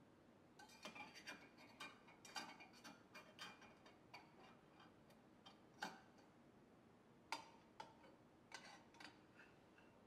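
Light metallic clicks and clinks of a clip-on milk thermometer against a stainless steel milk pitcher as it is fitted into place. The clicks come in a quick cluster over the first few seconds, then as a handful of single clicks, the sharpest about six and seven seconds in.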